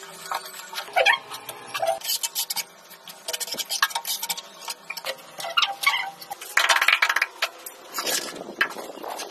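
Hand tiling work: irregular sharp clicks, taps and knocks of ceramic wall tiles and tools, some with a short ring, and a longer scraping rattle about seven seconds in.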